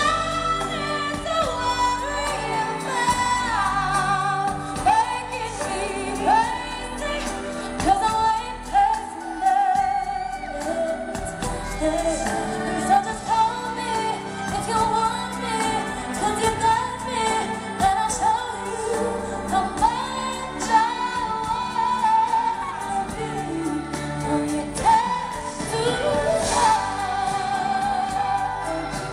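A female pop singer sings a slow ballad live, with held notes that waver in vibrato, over her band's accompaniment in an arena concert.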